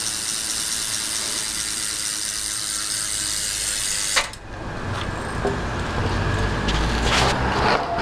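BMX bike's rear hub freewheeling as the back wheel spins: a fast, steady buzz of pawl clicks that stops suddenly about four seconds in. It is followed by lower rumbling noise with a few knocks.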